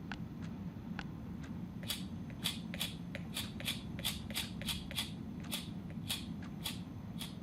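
Typing on a Wordrunner mechanical keyboard: irregular key clicks, sparse at first, then a steady run of about three to four keystrokes a second from about two seconds in.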